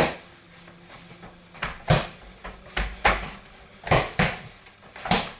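Boxing gloves smacking punch mitts in combinations: about eight sharp smacks, several of them in quick pairs.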